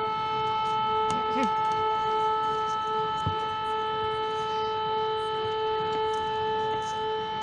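Civil-defence siren sounding a training air-raid alert, holding one steady, unwavering tone.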